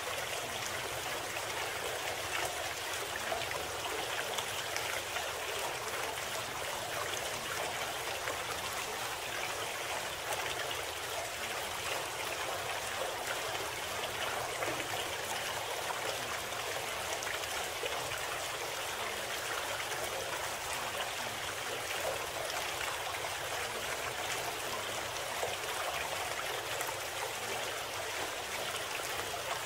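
Steady sound of a flowing stream, an even rushing and trickling of water that does not change, used as the audible masking bed of a subliminal audio program.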